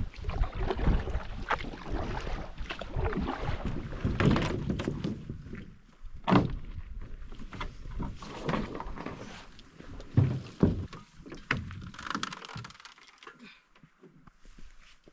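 Paddling a Kevlar canoe: irregular splashing of paddle strokes with knocks of the paddles against the hull, the sharpest knock about six seconds in and two more around ten seconds, quieter toward the end.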